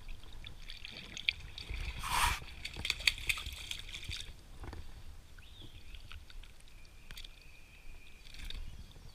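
Shallow lake water sloshing and splashing around a person's legs as they wade, loudest about two to four seconds in.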